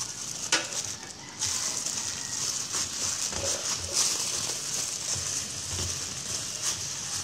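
Plastic-gloved hand kneading mashed purple yam and flour into a dough in a stainless steel bowl: crinkling of the plastic glove and soft squishing of the dough, irregular.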